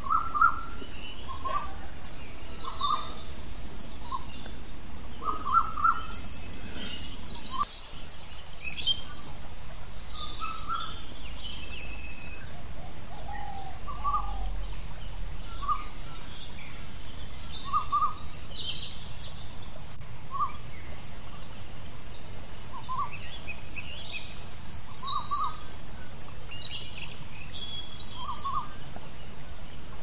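Countryside ambience of several birds chirping and calling over a steady hiss, with short repeated notes every second or two and a thin high steady tone joining about twelve seconds in.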